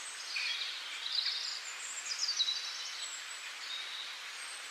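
Several birds chirping and calling over a steady outdoor hiss, with short high notes overlapping and a few quick downward-sliding calls about two seconds in.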